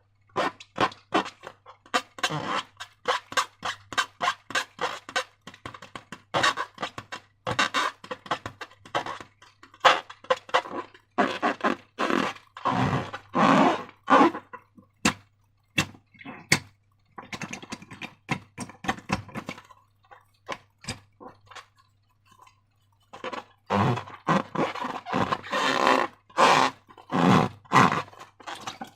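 Slime being worked by hand: many sticky clicks and wet squelches in quick, irregular succession, thickest about eleven seconds in and again near the end. A faint low hum runs underneath.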